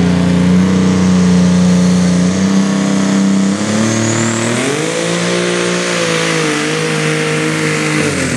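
Super stock pulling tractor's engine running at the starting line. It steps up in pitch about halfway through, holds high, and drops again near the end.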